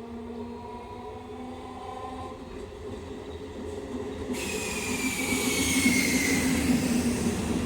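A train drawing near and growing louder. About four seconds in, a high hiss and a falling squeal from the wheels on the rails suddenly set in.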